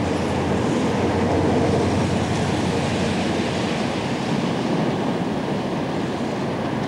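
Steady rumble and road noise of a moving car, heard from inside the cabin.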